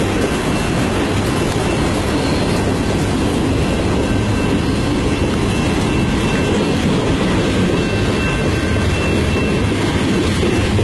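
Cars of a mixed freight train (boxcars and tank cars) rolling past: a steady, loud noise of steel wheels running on the rails. A faint thin squeal from the wheels comes and goes.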